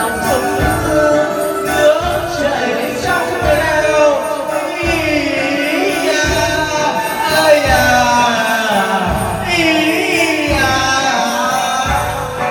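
Karaoke music played loud over room speakers, with men singing along through microphones in the style of Vietnamese hầu đồng (chầu văn) ritual songs.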